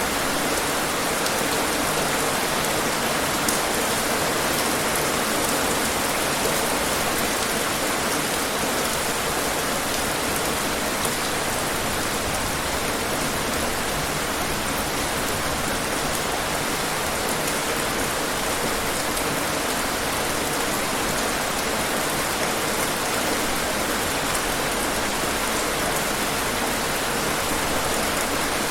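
Steady heavy rain falling on hard surfaces, an even hiss with scattered drop ticks.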